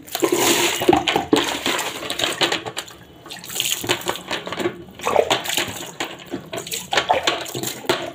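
Water splashing out of a plastic bucket onto a concrete floor, in repeated surges as the bucket is tipped and dipped.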